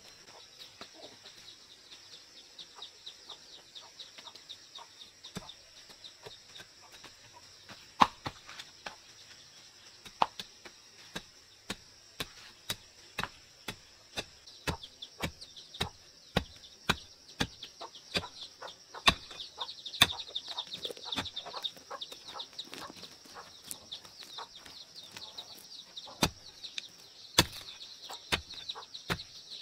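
Irregular sharp knocks or taps, about one or two a second, some much louder than the rest, over a steady high insect drone.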